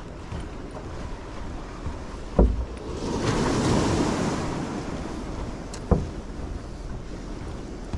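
Ocean waves washing and breaking around the pier pilings below, one wave swelling up about three seconds in and fading away, with wind on the microphone. Two short low thumps stand out, one before the wave and one after it.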